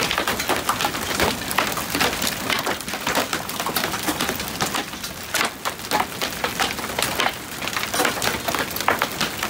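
Large hailstones pelting a wooden deck and the ground around it: a dense, irregular clatter of sharp hits, many each second.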